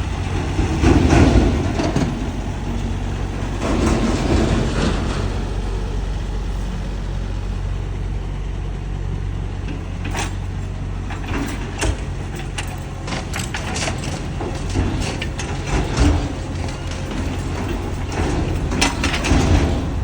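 Mini excavator engine running steadily, swelling briefly twice near the start, with a series of sharp metallic clanks and knocks from about halfway through.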